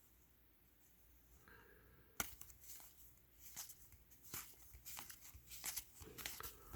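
Faint handling of trading cards: a single sharp tap about two seconds in, then light scattered clicks and rustles.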